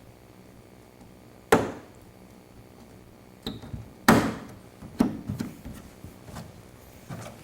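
Sharp knocks as a door panel's metal clips are pushed and tapped home into holes in a car door: two loud knocks about a second and a half and four seconds in, then a few lighter knocks and handling clatter.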